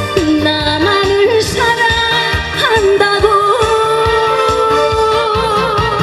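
A woman singing a Korean song into a microphone over a backing track with a steady beat, holding one long note through the second half.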